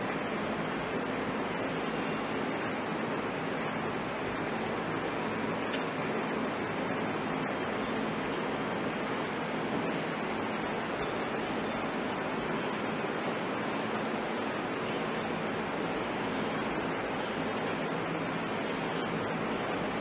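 A steady, even hiss of noise that does not change, with no distinct sounds standing out from it.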